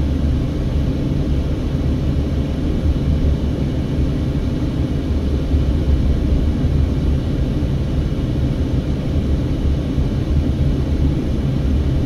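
Steady low road and engine rumble inside a moving Mercedes-Benz car's cabin as it drives along town streets.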